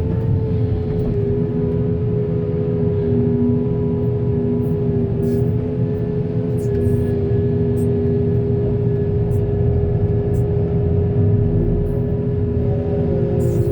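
Heavy diesel engine of earth-moving machinery running steadily under load, with a steady whine held over the low rumble.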